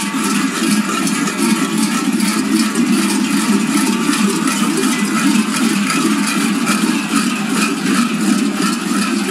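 Large metal bells hung at the waists of several kukeri dancers clanging together as they dance: a loud, dense, unbroken jangle.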